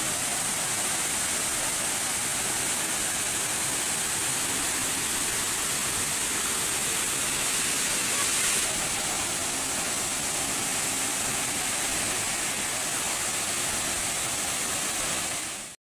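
Steady rush of a waterfall pouring into a rock pool, cutting off suddenly near the end.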